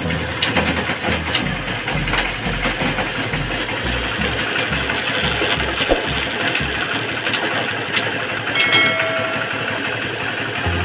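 Honda Unicorn motorcycle's single-cylinder engine running, with scattered mechanical clicks and a brief louder stretch about eight seconds in.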